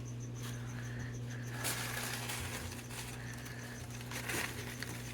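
Plastic shipping bags rustling and crinkling in two short bursts, about two seconds in and again near the end, over a steady low electrical hum.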